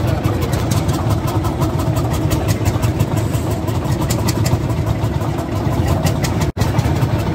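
A tractor engine running steadily, low and even, with the sound cutting out for an instant near the end.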